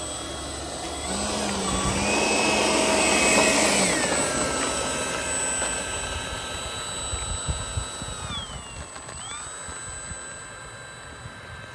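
Electric ducted-fan whine from the Freewing F-18 90mm model jet as it taxis away down the runway. The pitch drops about four seconds in as the throttle comes back, dips again and recovers around eight to nine seconds, and the whine grows fainter as the jet moves off.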